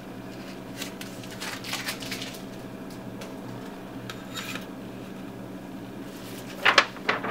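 Soft rustling and rubbing as the protective plastic film is peeled off a presensitized copper-clad circuit board and the board is handled and set down on cardboard, over a steady low hum. There are a few sharper handling clicks near the end.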